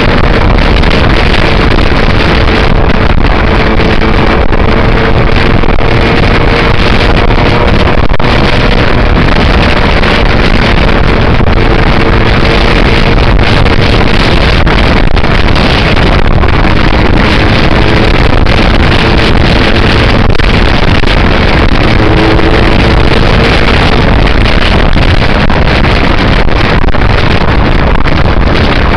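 Aprilia RS125 two-stroke single-cylinder motorcycle engine running at speed under loud, steady wind rush on a helmet-mounted camera microphone. The engine's tone is faint beneath the wind and drifts a little in pitch as the throttle changes.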